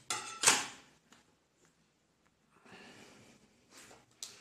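A short breath, then quiet handling of small tools and a steel square on a tabletop, with a faint rustle about three seconds in and a couple of light clicks near the end.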